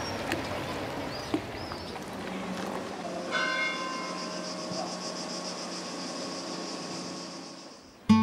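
A church bell struck once about three seconds in, ringing on with several steady tones and slowly fading away.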